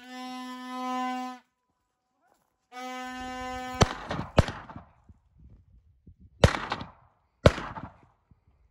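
A held brass-like note of background music breaks off at the first of four shotgun shots at a running wild boar. The first two shots come about half a second apart near the middle, and the last two a second apart near the end, each with a short echoing tail.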